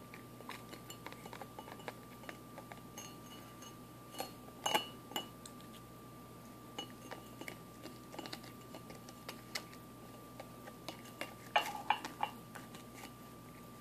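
A cat biting and crunching a sheet of matzah, with sharp cracks and clicks as the cracker snaps and knocks against the drinking glass it stands in, some clinks ringing briefly. The loudest bursts of crunching come about four seconds in and again near the end.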